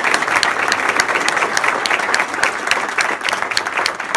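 Audience applauding: many people clapping steadily and loudly.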